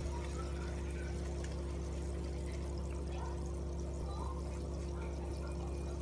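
Pond water bubbling and splashing without a break as air bubbles rise and burst at the surface, over a steady low hum.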